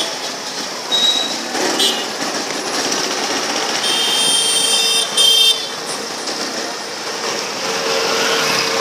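Busy street traffic: motorbike and scooter engines running, with vehicle horns honking. A high-pitched horn sounds for about a second and a half midway, and a shorter one about a second in.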